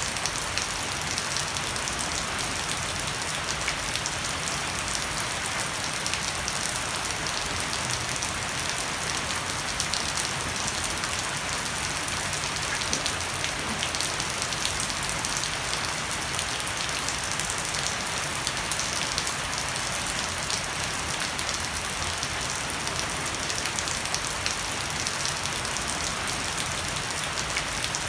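Heavy rain falling steadily on a wooden deck and leafy shrubs, with water streaming off a thatched roof edge: an even hiss of dense, close-packed patter that does not let up.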